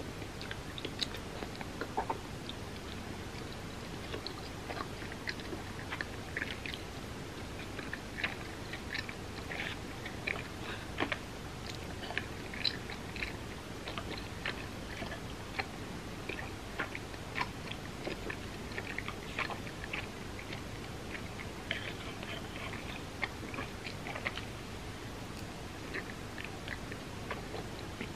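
A person chewing and biting food in a mukbang, many short irregular mouth clicks over a steady background hiss.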